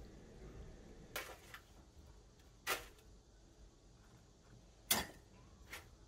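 Metal kitchen tongs clicking and knocking against a ceramic bowl while dumplings are set onto noodles: four sharp clicks a second or two apart, the middle two the loudest.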